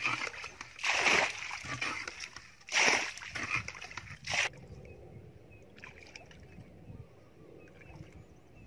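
Water splashing as it is scooped up with a bowl and thrown out of a muddy ditch pool: three loud splashes about two seconds apart. The sound then cuts off suddenly, leaving only faint sounds of shallow water.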